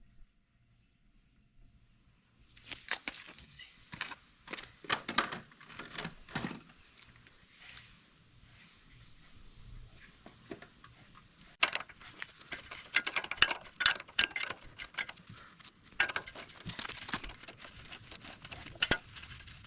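Irregular clicking and knocking of metal hand tools and motorcycle parts being handled during swingarm disassembly, starting about two and a half seconds in and busiest past the middle.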